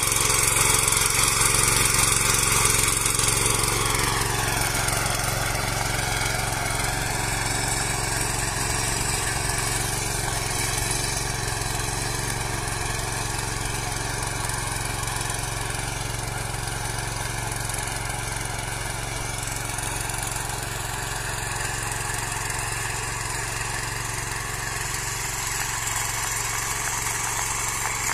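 Small air-cooled engine of a mini power tiller running under load as its tines work dry soil. The engine note dips a few seconds in and then holds steady, growing a little fainter as the tiller moves away and louder again near the end.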